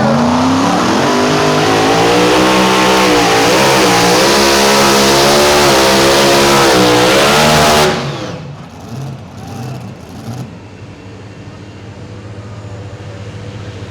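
Pulling-competition engine at full throttle, its pitch wavering up and down under load. About eight seconds in it stops suddenly, leaving a quieter, steady engine sound.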